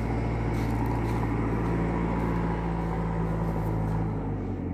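An engine running steadily, a low hum that shifts in pitch about four seconds in.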